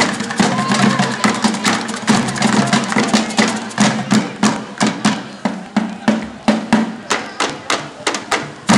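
Batucada drum ensemble playing a fast samba rhythm: dense drum and stick hits over a deep drum pulse. In the second half the hits thin out to an even beat of about three strong strokes a second, and the full texture returns near the end.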